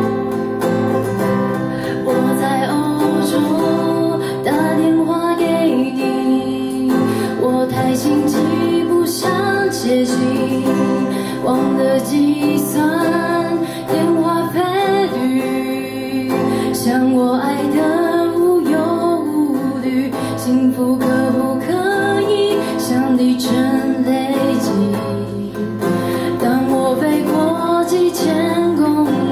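A woman singing a slow song with acoustic guitar accompaniment.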